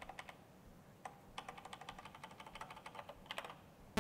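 Typing on a laptop keyboard: irregular runs of quiet key clicks. Right at the end a loud, buzzy sawtooth-wave synth tone at 220 Hz cuts in.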